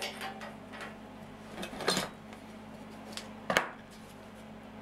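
Steel pieces being handled on a steel workbench between welds: a few sharp metal clinks and knocks, the loudest about two seconds in and about three and a half seconds in, over a low steady hum.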